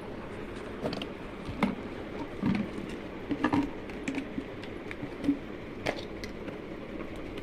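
Hard plastic containers and their blue snap-on lids being handled: irregular clicks and knocks as lids are pulled off and the containers are set down, over a steady hiss.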